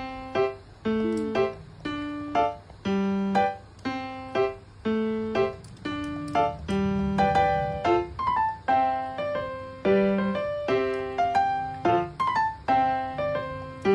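Background keyboard music: a gentle melody of single piano-like notes, about two a second, each struck and fading away.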